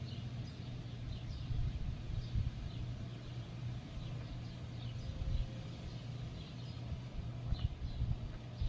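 Faint short bird chirps scattered throughout, over a continuous low rumble.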